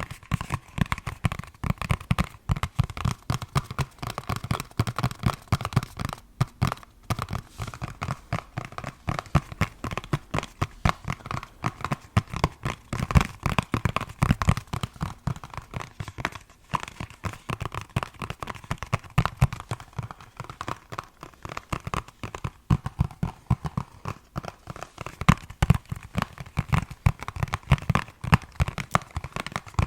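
Fast, continuous tapping on a hard object, many taps a second in irregular runs, with a couple of brief pauses.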